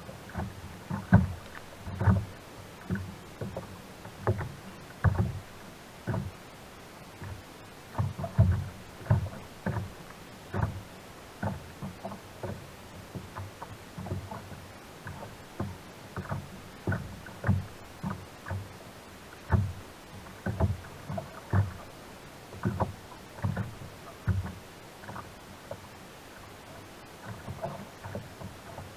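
Small waves slapping against the hull of a sit-on-top kayak, an irregular run of short, dull knocks.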